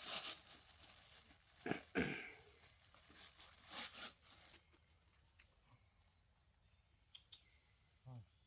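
Handling of a thin plastic bag of fruit: a few short bursts of crinkling and rustling in the first half, then only a few faint clicks.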